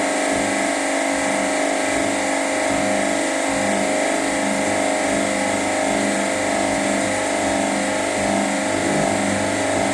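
Washing machine drum spinning: a steady mechanical hum with many held tones. The owner blames the machine's excessive vibration on the clothes bunching to one side of the drum, an unbalanced load.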